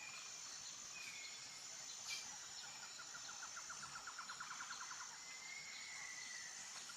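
Faint outdoor ambience of small birds and insects: a steady high insect whine, a few brief bird chirps, and a fast pulsing trill lasting about two seconds from about three seconds in.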